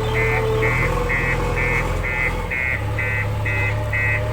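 JCB 3DX backhoe loader's diesel engine running under work, its note shifting about halfway through, with its reversing alarm beeping steadily about twice a second.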